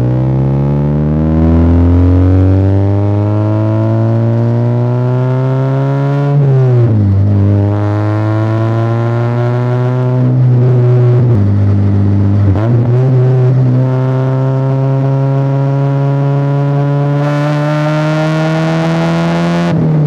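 NA Mazda Miata's 1.6-litre four-cylinder engine pulling up through the revs under acceleration, its pitch rising for about six seconds and then dropping sharply at an upshift. Further drops in pitch follow, near ten seconds and again around twelve, before a long, slow climb that ends with another drop at the close.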